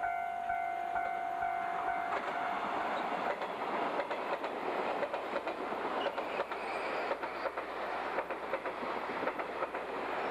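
A long steady warning tone that fades out in the first two or three seconds, then a JNR 381 series electric train passing close at speed: a loud rush of noise with a rapid clatter of wheels over rail joints.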